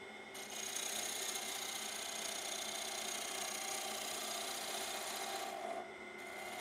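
Woodturning gouge cutting a spinning wooden workpiece on a lathe: a steady shaving, rasping noise of the tool edge taking wood off down the grain. The cut eases briefly near the end.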